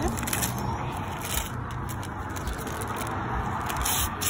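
Paper rustling and crinkling as a gift is unwrapped from a gift bag and tissue paper, with a louder crinkle near the end.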